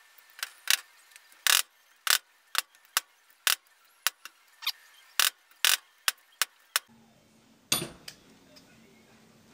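Small hammer tapping a bearing ring down into its housing on an antique drill press: a quick run of sharp taps at an uneven pace for about seven seconds, then one last tap a second later as the ring seats.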